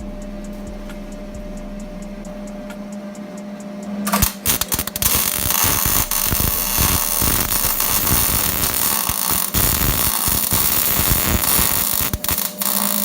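Welding arc crackling, starting about four seconds in and cutting off abruptly near the end. Before it, only a steady electrical hum.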